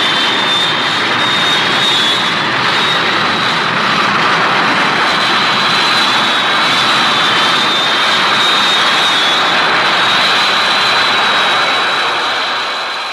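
Mechani-Kong robot sound effect: a steady, jet-like rushing hiss with a thin high whine on top, starting suddenly and beginning to fade out near the end.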